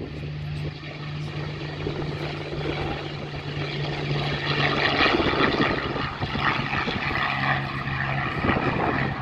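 Spitfire's piston aero engine running at take-off power as the fighter runs along the strip and climbs away. A steady low drone grows louder and brighter about four to five seconds in, and dips slightly in pitch near the end.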